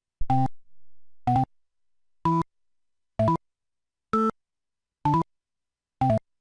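Motorola MS600 phone's synthesized keypad tones from its Yamaha MA-7 sound chip: seven short electronic chimes, about one a second, each a quick step through two or three notes, the pitch changing from key to key.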